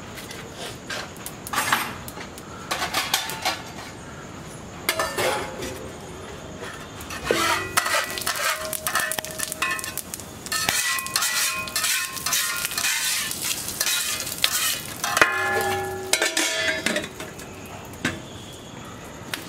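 Stainless steel ladle and pots clanking and scraping, with ringing metal knocks coming thick and fast through the middle, and a steel lid set onto a pot for dum cooking.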